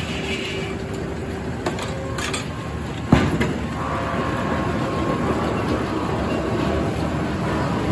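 Circular sawmill running steadily, with several sharp knocks of wood and machinery, the loudest about three seconds in.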